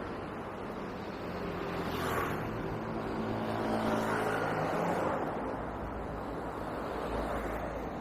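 Road traffic on a city street: a steady hiss of tyres and engines, with a vehicle passing close by, growing louder toward the middle and fading away again.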